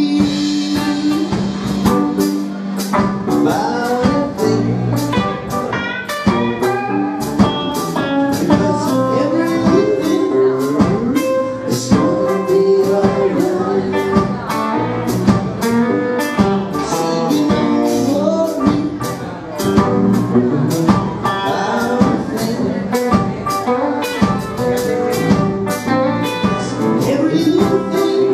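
Live band playing with two electric guitars, bass guitar and drum kit, the drums keeping a steady beat.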